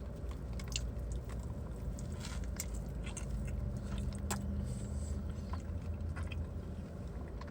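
A person chewing a mouthful of pambazo sandwich: soft, scattered mouth clicks and smacks over a steady low hum.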